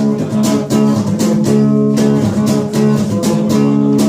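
Instrumental music: a guitar strummed in a steady rhythm, with no vocals.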